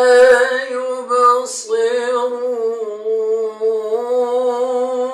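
A qari reciting the Quran in melodic tajweed style, drawing out a long held vowel with slow, ornamented turns of pitch. A short hissy consonant breaks the line about a second and a half in.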